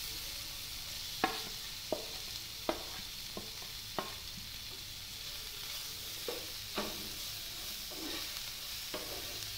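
Chopped vegetables frying in oil in a pan with a steady sizzle, and a spatula clicking against the pan now and then as they are stirred.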